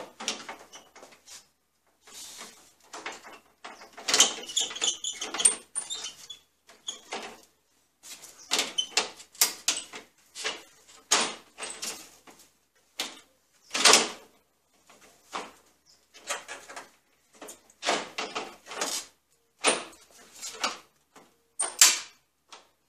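Plastic grille of a Jeep Cherokee XJ being handled and snapped into place: irregular sharp clacks, knocks and short rattles of plastic against the body, with a few louder snaps spread through.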